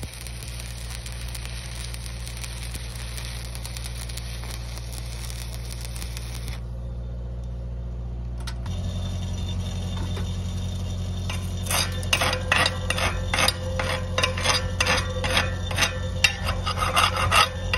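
Stick welding arc crackling steadily as a vertical-up weld is run on a steel pipe-gate hinge strap, breaking off about six and a half seconds in. Later comes a quick run of light metallic clinks and taps.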